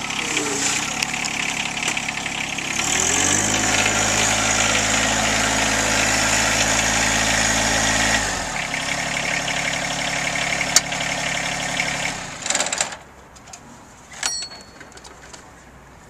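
John Deere sub-compact tractor's three-cylinder diesel engine running. About three seconds in it revs up and holds. It drops back to a lower speed around eight seconds in and shuts off near thirteen seconds in.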